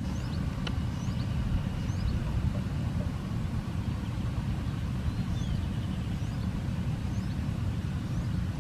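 Steady low rumble outdoors, with faint, short high chirps of small birds scattered through it.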